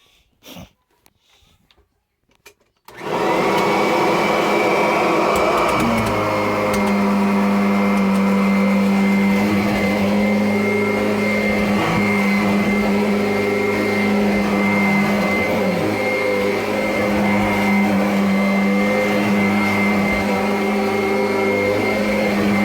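A few faint clicks, then about three seconds in a Kirby Avalir upright vacuum is switched on: its motor spins up to a steady high whine and runs steadily as it vacuums and grooms carpet.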